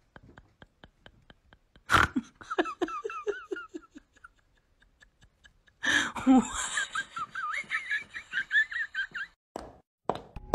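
A person laughing in two high-pitched fits, one starting about two seconds in and another about six seconds in. Faint quick ticking, about four a second, runs before the first laugh.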